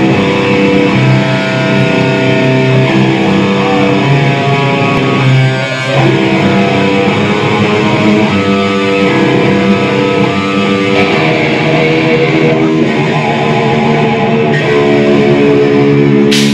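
Live band playing loud: electric guitars and bass ring out long, held chords and notes without drums.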